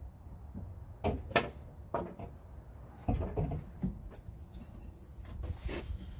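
Irregular knocks and clicks of things being handled: two sharp knocks about a second in, another at two seconds, a cluster of clunks around three seconds, and a short rustle near the end.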